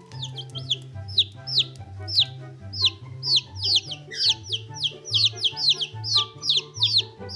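Baby chicks peeping, a quick run of short high peeps that each fall in pitch, a few a second, over background music with a steady bass line.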